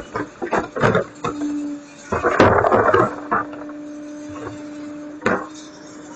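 Irregular knocks and clattering thuds, a dense burst of them a couple of seconds in and a single sharp knock near the end, as yard waste is loaded into a garbage truck, over the truck's steady hum.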